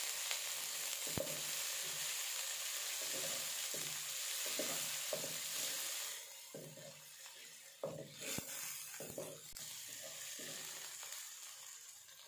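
Tomato pieces and onions sizzling in hot oil in a nonstick wok while a wooden spatula stirs and scrapes them. The sizzle is steady, then falls away sharply about six seconds in, leaving fainter frying and the spatula strokes, with one sharper knock about eight seconds in.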